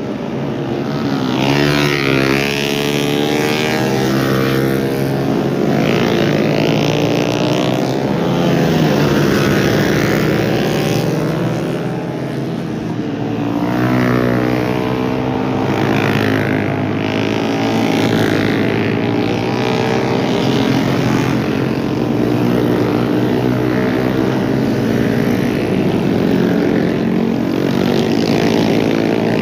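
Several small motorcycles and scooters passing through a tight bend one after another, their engines revving up and down in pitch as each rider brakes and accelerates, with several engines overlapping.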